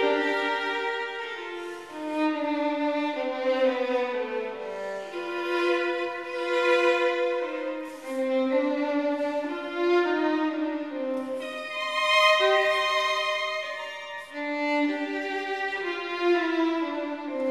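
Background music: a slow melody played on violin, with held notes moving stepwise.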